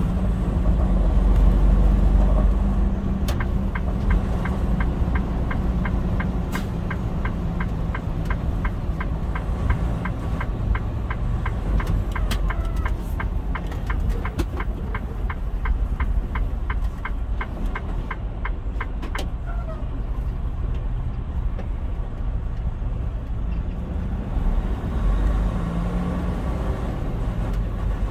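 In-cab engine and road rumble from a vehicle slowing and turning off the road. A turn signal ticks steadily, about three clicks a second, for roughly fifteen seconds before stopping.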